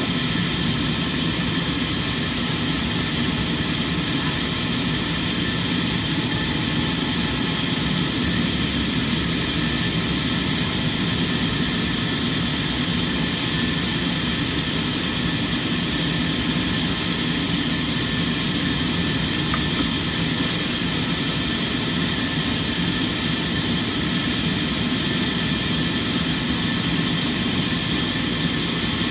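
Sawmill machinery running steadily: a constant mechanical drone with a steady hum, unchanging throughout.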